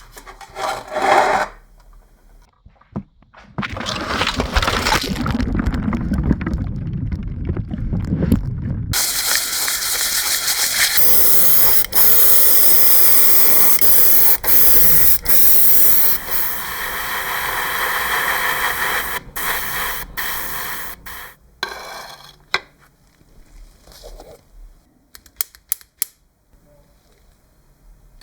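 A loud, steady spraying hiss lasting about twelve seconds, the sound of air or liquid forced out under pressure. A lower rumbling noise comes before it, and scattered sharp clicks and knocks follow near the end.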